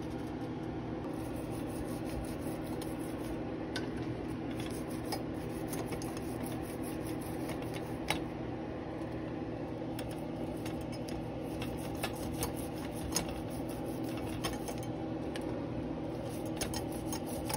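A toothbrush scrubbing brass drawer pulls, cleaning off tarnish loosened by a boiling vinegar soak. It makes scattered light scratches and clicks of bristles and pulls on a towel, over a steady low hum.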